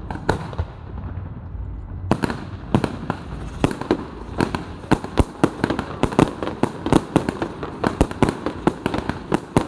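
Fireworks going off: one sharp bang just after the start, then from about two seconds in a rapid string of sharp bangs and pops, several a second, as a barrage of shells goes up and bursts.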